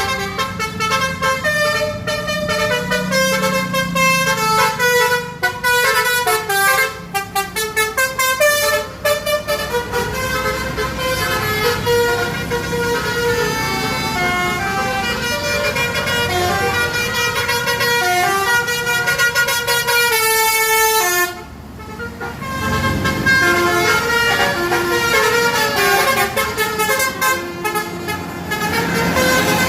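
Basuri telolet bus horns playing quick melodic runs of notes, pitch stepping up and down as the horns sound in turn, with a low engine rumble underneath. The horns break off briefly a little past two-thirds through, then start up again.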